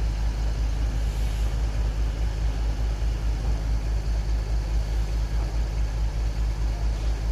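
Diesel engines of telescopic mobile cranes running steadily with a deep, low drone while the cranes hold a heavy load on their hooks.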